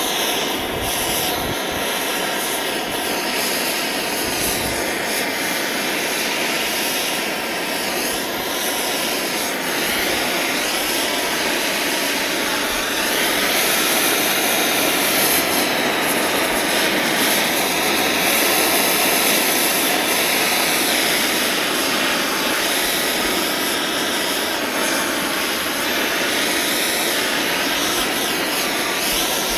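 Propane torch burning steadily, a continuous rush of flame as it chars a carved wooden morel mushroom black.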